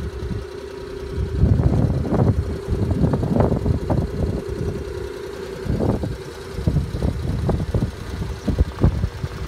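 Suzuki Carry DD51T kei truck's small three-cylinder engine idling with a steady hum, while gusts of wind buffet the microphone in irregular bursts.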